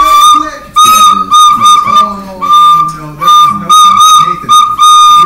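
A whistle blown in a run of about a dozen short and long toots, all on nearly the same high pitch, in a tune-like rhythm with slight dips in pitch where the notes join.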